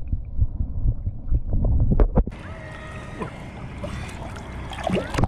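Water sloshing and gurgling with a few knocks. From about two seconds in it gives way to a steady hiss of rushing water.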